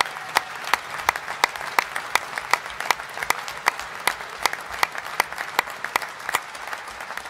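Conference audience applauding steadily, with sharp single claps close to the microphone standing out from the general clapping.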